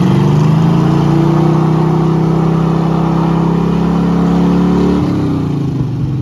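Car engine revving hard and held at high revs under load during a tow-strap pull on ice, then easing off sharply about five seconds in.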